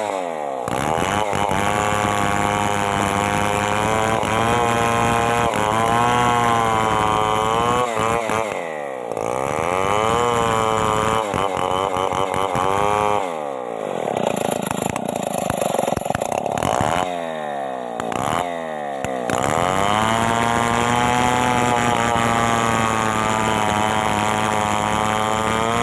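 Stihl MS 381 chainsaw, a 72 cc two-stroke, running hard while cutting mahogany. Its engine note sags and recovers under the load, and falls away sharply several times as the throttle is let off, then climbs back to full revs.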